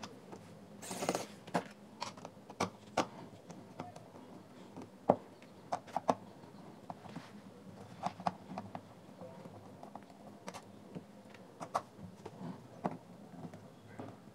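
Small hand screwdriver working tiny screws out of a JBL Flip 3 speaker's plastic casing: irregular sharp clicks and taps of the tip in the screw heads and against the plastic, with a brief scrape about a second in.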